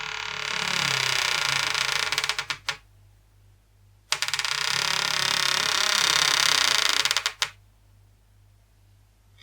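A door creaking twice on its hinges. Each creak lasts about three seconds and breaks into a quick run of clicks as it stops, with a pause of about a second and a half between them.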